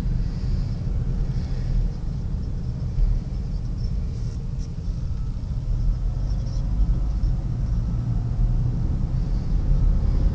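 A car driving, giving a steady low road rumble.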